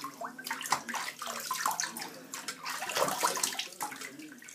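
Water splashing in a sink as a face is rinsed with handfuls of water under a running tap, in irregular splashes.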